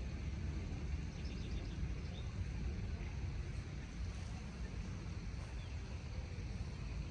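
Outdoor morning ambience: a steady low rumble with a short run of faint bird chirps about a second in.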